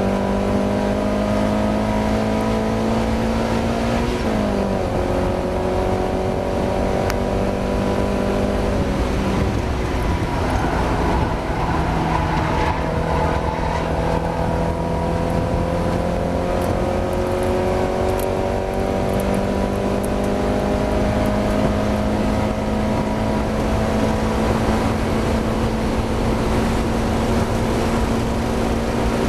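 Mazda MX-5 race car engine pulling hard, its pitch climbing steadily. It drops sharply at a gear change about four seconds in, eases off around nine seconds, then climbs again in a long pull, over steady road and wind noise. The car is suffering a misfire in this race.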